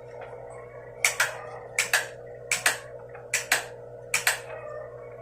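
Five evenly spaced double clicks, about three-quarters of a second apart, from a hand switch pressed on and off five times. The five presses send the Morse numeral five, five dots, as a flashed or keyed signal.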